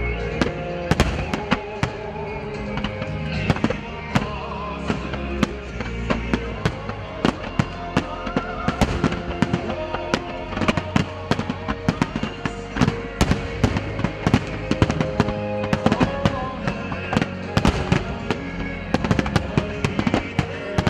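Starmine fireworks barrage: aerial shells bursting in rapid succession, a dense stream of sharp cracks and bangs, over music with long held tones.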